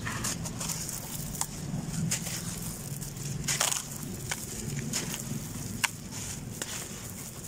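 A dry, crumbly sand block crunching and breaking apart as hands squeeze it, with grit and powder falling away. Sharp crackles come all through, the loudest crunch about three and a half seconds in.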